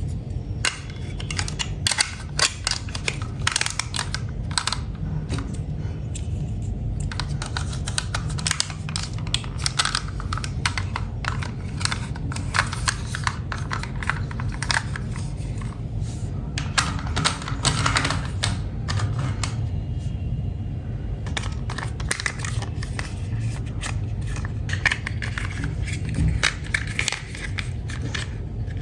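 Small hard plastic toy pieces clicking and clattering irregularly as they are handled, over a steady low hum.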